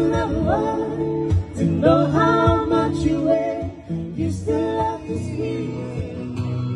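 Acoustic guitar strumming with a voice singing a melody over it.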